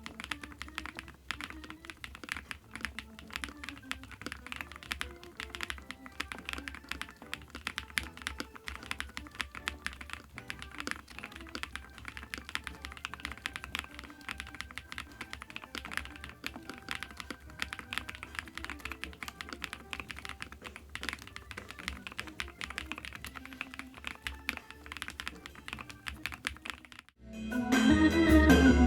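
Fast, steady typing on a ZONEX 75, a 75% full-aluminium gasket-mount mechanical keyboard: a dense run of key clacks over quiet background music. The typing stops about 27 seconds in, and much louder music comes in.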